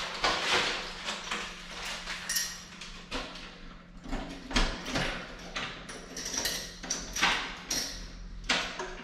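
Keys and door lock rattling and clicking in irregular bursts as a hotel room door is being unlocked, over a faint steady low hum.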